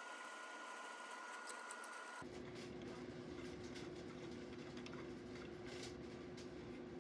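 Faint steady room hum. It changes abruptly about two seconds in to a lower, noisier hum, with a few faint clicks.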